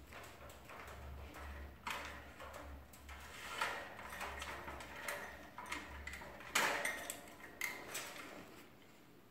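A cockatiel clambering at the front of its wire cage and rattling the bars and door as it tries to get out: irregular light metallic clicks and clatters, loudest about six and a half seconds in.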